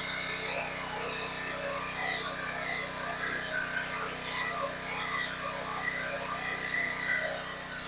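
Predator 3200 PSI pressure washer's 223cc gas engine and pump running steadily.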